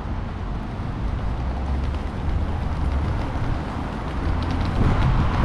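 City street traffic on wet roads: a vehicle's low rumble swells and fades over a steady hiss of street noise.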